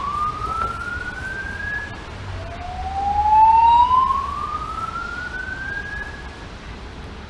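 Fire alarm evacuation signal sounding its slow whoop tone: a loud rising sweep that climbs steadily in pitch for about four seconds, then breaks and starts again low. One sweep tops out about two seconds in, and the next rises from just after that to near the end.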